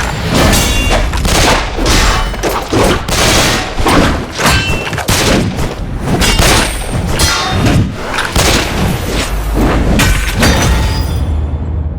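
Rapid, densely layered action sound effects (booms, thuds and hard impacts) stacked over a pop song with a heavy bass line, dying away near the end.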